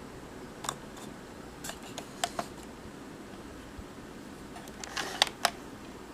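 Scattered plastic clicks and light knocks from a Panasonic AG-450 S-VHS camcorder's switches and casing being handled, a few in the first two seconds and a quick cluster about five seconds in, over a faint steady hum.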